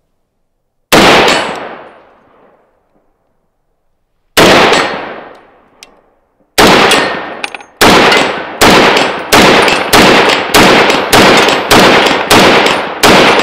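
A muzzle-braked semi-automatic 300 Winchester Magnum rifle firing twelve loud shots, each trailing off in an echo: three single shots a few seconds apart, then nine in quick succession at about one and a half a second.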